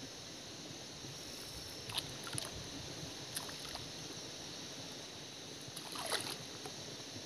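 Hooked fish splashing at the surface of a pond as it is drawn in to the bank: a few light splashes from about two seconds in, then a larger thrashing splash about six seconds in. Steady outdoor background noise throughout.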